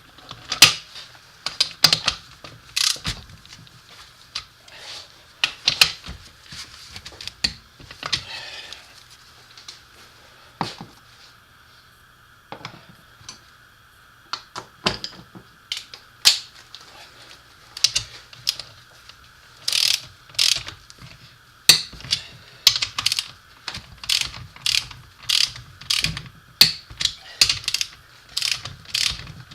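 Click-type torque wrench ratcheting in short runs of sharp clicks as bolts on an NP247 transfer case are run down and torqued to a preset value. There is a lull of scattered clicks in the middle, then steadier clicking, about two or three a second, toward the end.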